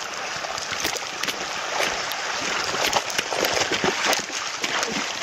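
Fast, shallow river current rushing over a gravel bed, with scattered small splashes as a hooked rainbow trout thrashes in the shallows beside a landing net.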